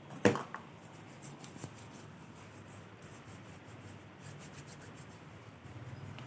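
Hands rubbing together with hand sanitizer during hand hygiene, a soft steady rubbing. It is preceded by a sharp click about a quarter second in.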